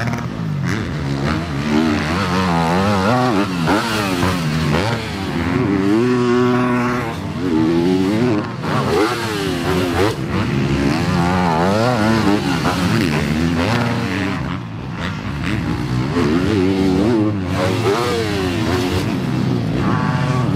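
Yamaha four-stroke motocross bikes revving hard, the engine pitch rising and falling again and again as the throttle is opened and chopped. More than one bike can be heard at once.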